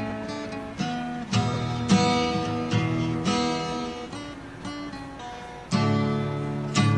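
Background music: acoustic guitar plucked and strummed in chords.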